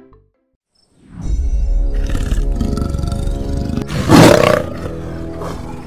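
Dramatic soundtrack music drops out for under a second, then swells back in with a heavy low end. About four seconds in, a big cat's roar, a sound effect for an attacking leopard, cuts over the music as the loudest sound, lasting under a second.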